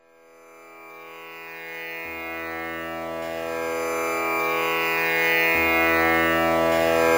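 Indian classical-style instrumental background music: a sustained plucked-string drone that swells up slowly from silence.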